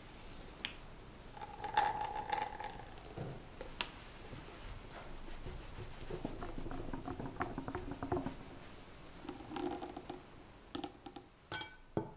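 Chocolate mixture poured into egg-yolk batter in a glass bowl, then a wire whisk stirring the batter against the glass in quick, regular strokes. A couple of sharp clinks near the end as a metal mesh sieve is set down on the bowl.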